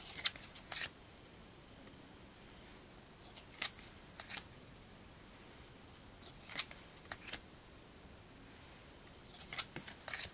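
Occult Tarot cards being flipped through one by one: a quick pair of crisp sliding strokes each time a card is moved, four times, about three seconds apart.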